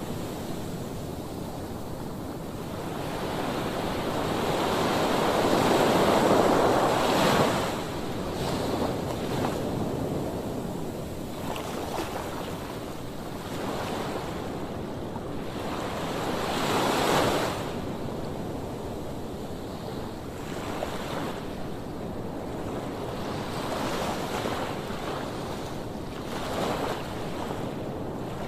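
Rough sea surf breaking on a sandy beach, the wash rising and falling in surges, the biggest wave about a quarter of the way in and another about two-thirds through. Wind blows on the microphone throughout.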